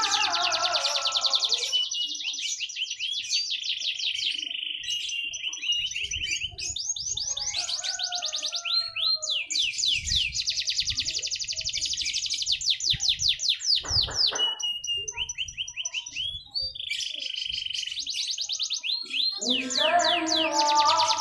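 Canary singing: fast trills and rolls of rapidly repeated high notes, one phrase after another with short breaks between them.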